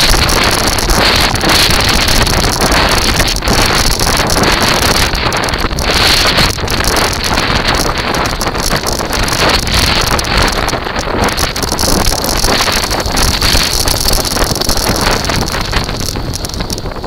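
Kite buggy rolling fast across a sandy, shelly beach: a loud, steady rush of wind buffeting the buggy-mounted camera's microphone, mixed with the rumble of the wheels over the sand. The rush eases a little near the end.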